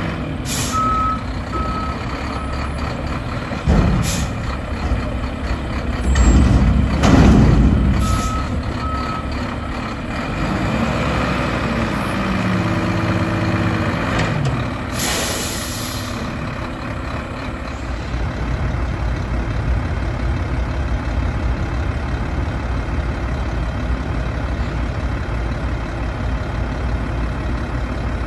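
Mack LR front-loader garbage truck working its hydraulic arms to dump a container over the cab. Its engine revs under load, with a whine that rises and falls, and sharp bangs come from the container. Two short alarm beeps sound twice, about a second in and again about 8 s in, and a loud burst of air hiss comes about 15 s in, before the truck's engine settles into steady running.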